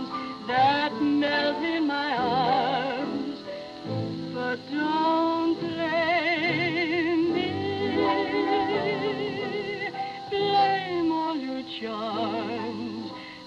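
A woman singing a slow ballad with a wide vibrato, held notes swelling and gliding, over orchestral accompaniment.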